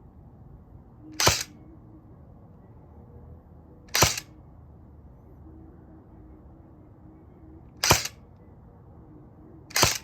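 Crosman Pulse R76 airsoft rifle firing four single semi-auto shots a few seconds apart, each a short sharp snap.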